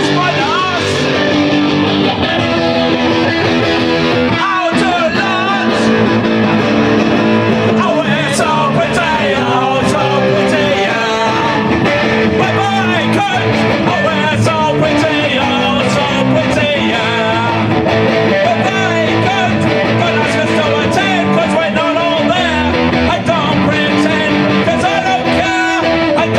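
Rock band playing a punk song, with loud strummed electric guitars and a singing voice over them.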